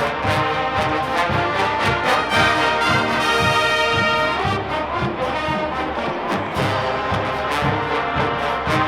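Marching band playing, led by brass (trombones and trumpets) over a steady drum beat. About three seconds in the brass holds a long chord before the beat picks up again.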